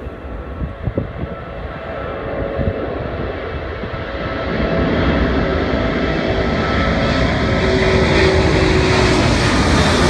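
Airbus A380-800's four Rolls-Royce Trent 900 turbofan engines at climb-out thrust as the airliner passes overhead: a jet rumble that grows louder and brighter, stepping up in loudness about halfway through and staying loud, with faint tones sliding slightly lower in pitch.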